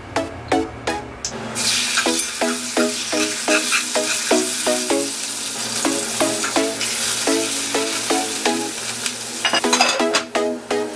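Raw lamb steak sizzling as it fries in hot oil in a cast-iron pot; the sizzle starts about a second and a half in and dies down near the end.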